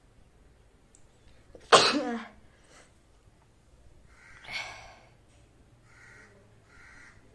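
A woman sneezes once, loudly and suddenly, her voice falling in pitch as it trails off; the sneeze is set off by tickling the inside of her nose with a thin stick. A softer breathy burst follows about three seconds later.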